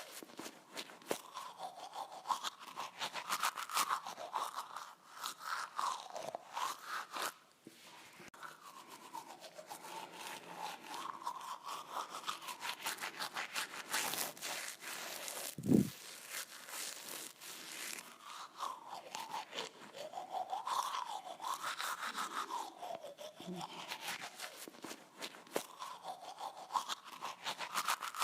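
Toothbrush brushing teeth with rapid, uneven back-and-forth strokes, and a brief low thump about halfway through.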